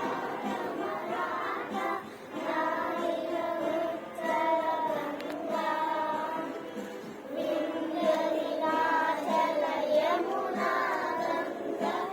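A group of children singing a song together in chorus, in held phrases with short breaks between them.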